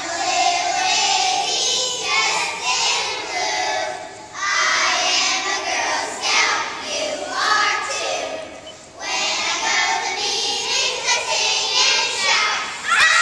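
A group of young girls singing together in short phrases, with brief pauses about four and nine seconds in.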